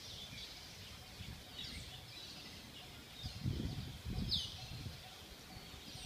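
Faint high chirps from songbirds, a few short calls scattered through, with one clearer downward-sweeping chirp about four seconds in. A low rumble comes twice just past the middle.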